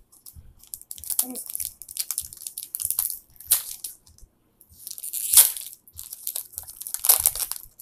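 Pokémon card booster pack wrapper being torn open and crinkled by hand, in irregular bursts of crackling, the loudest a little past halfway.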